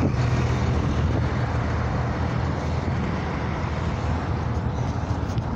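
Steady road traffic noise: cars running past on the road alongside, a continuous low rumble.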